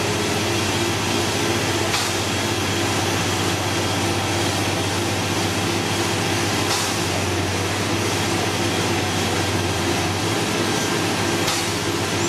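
Liebherr LB 36 drill rig's diesel engine running with a steady drone while drilling, with three faint clicks.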